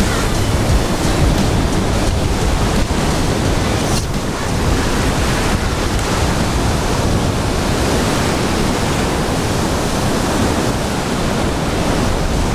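Strong wind rumbling steadily on the microphone over breaking surf washing up the beach.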